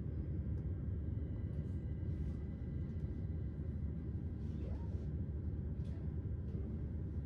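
Cabin noise inside a Class 387 Electrostar electric multiple unit under way: a steady low rumble of wheels and running gear, with faint light clicks and rattles every second or so.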